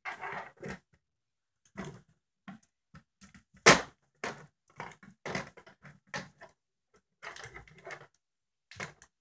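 Plastic WWE action figures clacking and thumping against each other and the toy wrestling ring's mat and ropes in irregular short knocks, one sharp, loud knock about a third of the way in.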